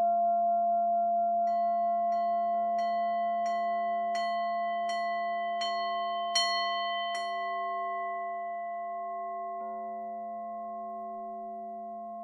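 Meditation music of sustained singing-bowl-like ringing tones layered over one another, with a run of about nine light bell strikes roughly 0.7 s apart in the first half. The ringing then slowly fades.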